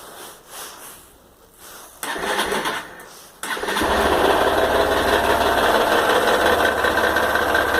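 Honda XRE 190 single-cylinder engine being started: a short burst of electric-starter cranking, then the engine catches about three and a half seconds in and idles steadily with a lot of mechanical noise. The owner takes the noise for an engine problem, although the Honda dealer calls it normal.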